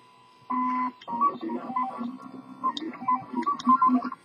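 RepRap 3D printer's stepper motors whining as the axes move: one steady tone for about a third of a second, then from about a second in a quick run of short tones jumping between pitches as the nozzle starts laying the first layer.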